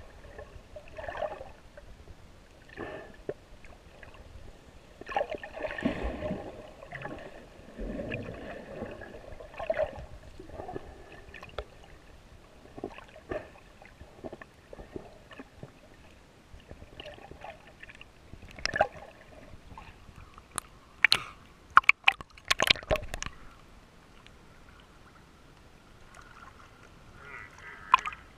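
Water sloshing and gurgling around the GoPro in its waterproof housing during snorkeling, coming and going in irregular swells. A cluster of sharp clicks or knocks falls about two-thirds of the way through.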